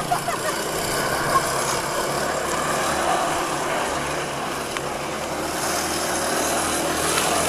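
Go-kart engine running as the kart is driven around, a steady drone with no breaks.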